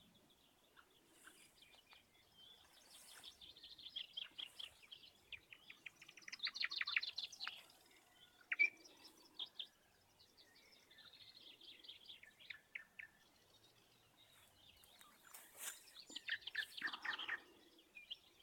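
Songbirds singing: overlapping chirps and trilled phrases. A louder rapid trill comes about a third of the way in and another near the end, its notes running down in pitch.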